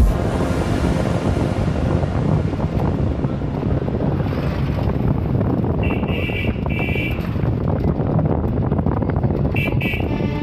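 Running noise of a moving bus, heard from its open window: a steady engine and road rumble with wind on the microphone. A vehicle horn beeps twice about six seconds in and twice more near the end.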